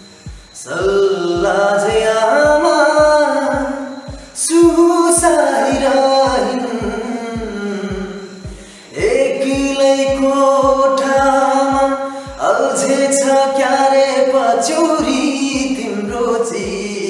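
A man singing a slow song in long held phrases, with breaths between lines. A low, steady thump keeps time underneath, about two and a half beats a second.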